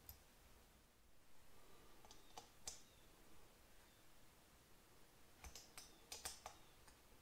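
A few light metallic clicks and taps of a small hand tool and parts against the aluminium cylinder head of a Honda CL125 while rocker-shaft hardware is fitted. The clicks come in two short groups, a handful about two seconds in and a quicker cluster near the end.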